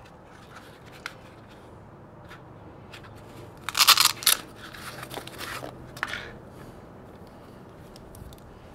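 Handling of a metal multitool: a few small clicks, then a loud rasping scrape about four seconds in, followed by lighter scraping and clicking.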